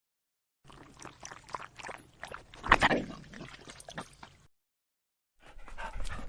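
A dog breathing fast, with many small clicking sounds, in two short stretches separated by silence; the loudest breath comes about two and a half seconds in.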